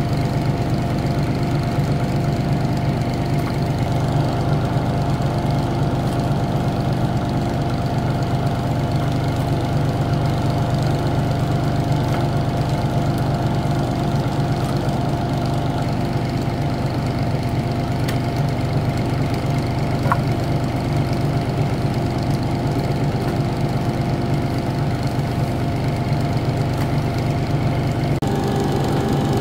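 A motor-driven machine running steadily: a constant low drone with a thin steady whine on top.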